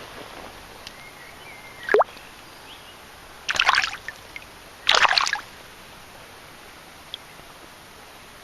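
River water running steadily, with two brief splashes about three and a half and five seconds in, and a short falling squeak about two seconds in.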